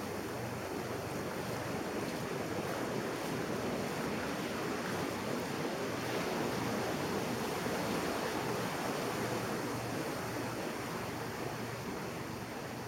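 Ocean surf breaking and washing up a sandy beach: a steady rush that swells a little around the middle and eases toward the end.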